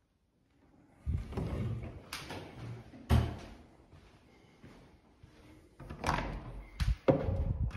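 Several sharp knocks and heavier thuds over a low rumble, coming in two clusters.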